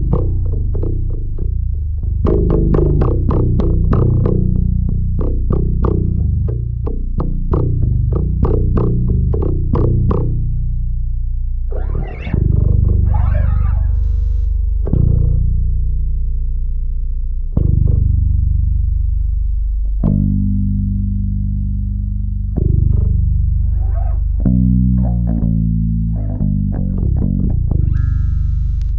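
Music on a bass guitar: a quick run of plucked notes for about ten seconds, then single low notes left to ring out a few seconds apart, with a quicker phrase near the end.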